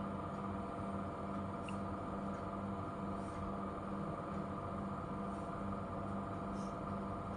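Steady low hum of background room noise, pulsing slightly, with a few faint ticks.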